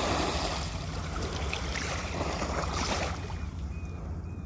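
Ocean waves washing onto the shore: a rushing surf that swells about twice and eases toward the end, over a steady low rumble.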